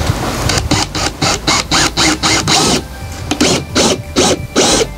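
Cordless drill driving a screw into a wooden board, the motor running in quick repeated pulses, about three to four a second.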